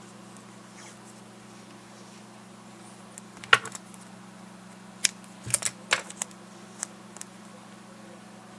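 A few sharp small clicks and taps of small parts and tools being handled on a work surface: one about three and a half seconds in, then a quick cluster a second and a half later and a last one near the end. A steady low hum runs underneath.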